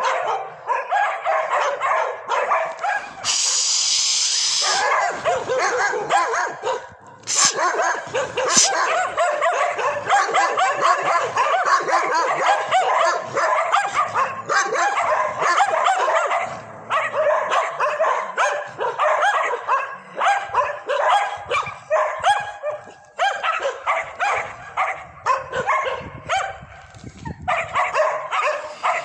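A pack of stray dogs barking and yipping almost without a break, many barks overlapping in quick succession, with a steady shrill sound for about a second and a half about three seconds in.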